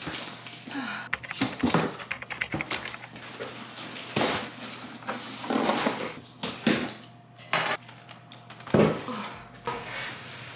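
Cardboard shipping box being opened and unpacked: flaps scraping and rustling, and packs of aluminium energy-drink cans knocking and clinking as they are lifted out and set down on a countertop, with several louder thumps.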